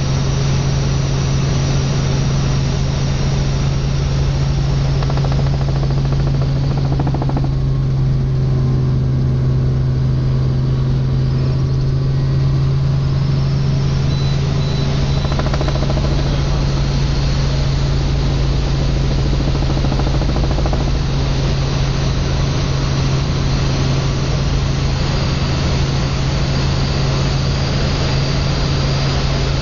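Helicopter cabin noise in flight: a steady engine and rotor drone with a strong constant low hum under a loud hiss. The hiss softens for a few seconds about a quarter of the way in.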